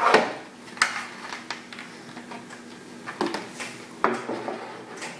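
Knocks and scrapes of the hollow plastic speaker shells of a 1960s Tappo Kontact portable record player being handled and set in place on a table: a few sharp knocks near the start, about a second in, and around three and four seconds in.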